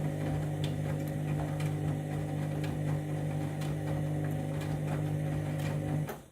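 Candy washing machine running its main wash: a steady motor hum with scattered light clicks, cutting off suddenly near the end.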